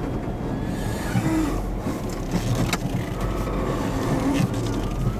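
An off-road 4x4 crawls over a rough dirt trail with its engine running steadily at low speed. A couple of sharp knocks and rattles come from the vehicle as it bumps over the ground.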